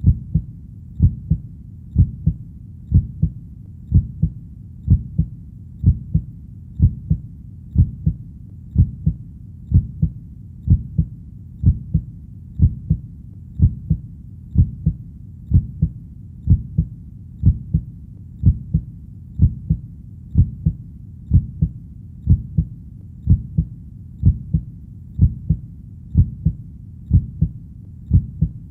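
Steady heartbeat: a low double thump (lub-dub), the first beat of each pair stronger, repeating evenly about once a second, over a faint steady low background noise.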